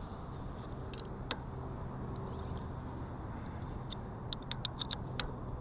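Steady low outdoor rumble, like distant traffic, with a couple of faint clicks about a second in and a quick run of six or seven light clicks about four seconds in.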